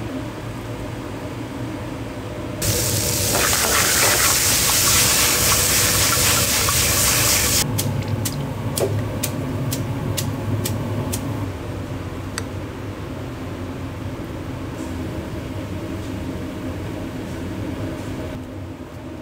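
Restaurant kitchen sounds over a steady equipment hum: a loud, water-like rushing noise lasting about five seconds, then a run of about a dozen sharp clinks over a few seconds.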